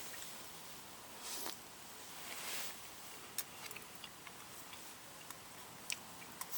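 Wood campfire crackling: irregular sharp pops and clicks over a faint steady hiss, with two short soft rushes of noise in the first three seconds.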